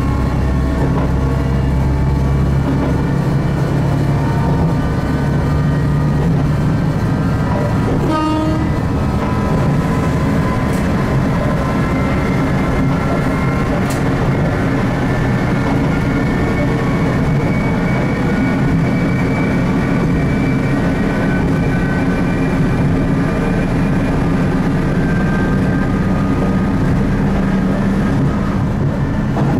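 Diesel railcar running along the line with a steady engine and running drone. Its whining tones slowly rise in pitch through the second half, and there is a brief sharp noise about eight seconds in.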